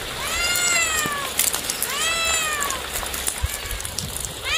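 Tabby cat meowing repeatedly: two long meows that rise and fall in pitch, then a fainter, shorter one, with another meow starting near the end.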